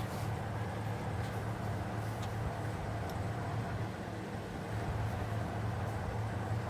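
A steady low hum over a broad background noise, with a few faint ticks.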